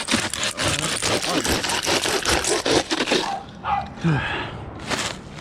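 Handsaw rasping through a dry palm frond, with crackling of the dry leaf, for about three seconds before the cut stops.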